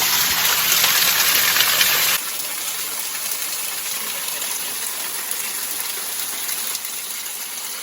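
Waterfall rushing, a steady roar of falling water heard up close in its spray. The rush drops a little in level about two seconds in.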